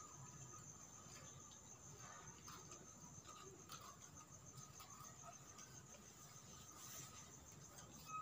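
Faint, steady high trill of crickets at night, with a few soft clicks.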